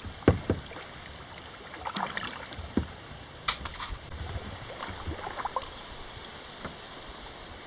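Kayak paddling on a slow river: paddle blades dipping and splashing with drips falling back into the water over a steady soft rush of moving water. Two sharp knocks, the loudest sounds, come shortly after the start.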